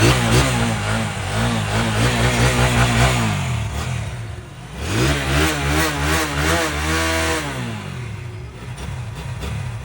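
Engine revved twice: the revs rise and hold for a few seconds, drop back, then rise again about five seconds in with quick wavering throttle blips before settling back toward idle.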